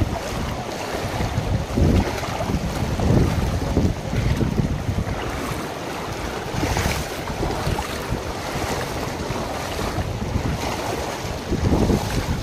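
Shallow river water rushing and splashing as someone wades across it, with wind buffeting the microphone in irregular low gusts.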